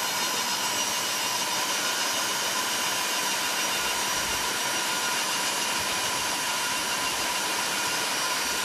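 Hot-air tool blowing steadily: an even rushing hiss with a steady whine, heating a circuit board to soften the glue under a chip.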